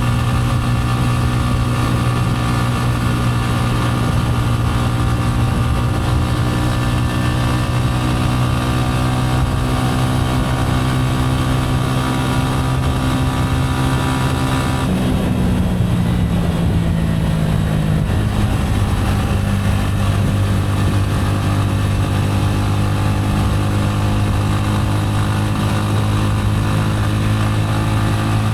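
Gilera AC4 motorcycle engine running at steady cruising revs. About halfway through, the engine note changes and settles a little lower, then holds steady again.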